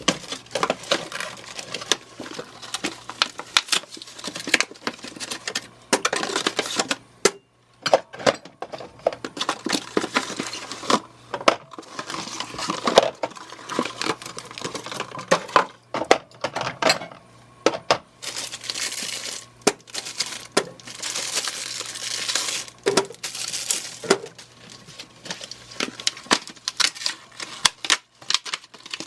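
Drink bottles being handled and set into a refrigerator: plastic packaging crinkling, with bottles clinking and knocking against each other and the shelves.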